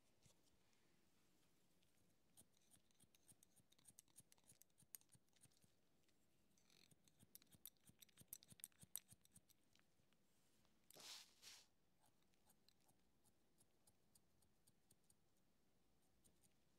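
Faint barber's scissors snipping through hair in quick runs of snips, with pauses between runs. About eleven seconds in come two short hisses close together, the loudest sound here.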